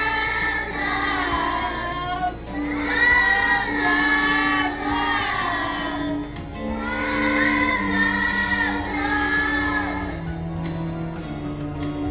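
A choir of young children singing in unison over a musical accompaniment, in phrases with short breaks between them. The singing stops about ten seconds in while the accompaniment plays on.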